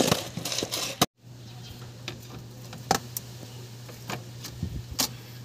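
Brief rustling of plastic wrapping around new clutch parts, then a few light metallic clicks and knocks as a Suzuki Ertiga's clutch pressure plate is positioned against the flywheel, the sharpest about three and five seconds in, over a steady low hum.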